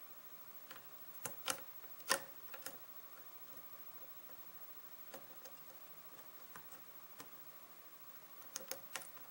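Scattered light metallic clicks and taps of a lock pick working the pin stacks of a six-pin Sargent lock cylinder under tension, the loudest about two seconds in and a quick little cluster near the end.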